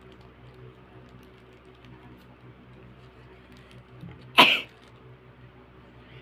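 A person's single deliberately induced sneeze: one short, loud burst a little over four seconds in.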